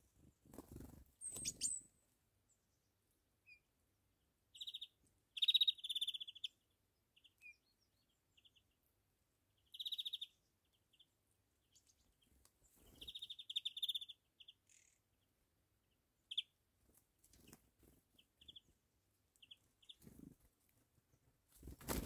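Small songbirds at a feeding table giving short, rapid, high-pitched trilled calls in several bouts, with single high notes in between. A few soft low flutters or rustles are also heard, the strongest near the end.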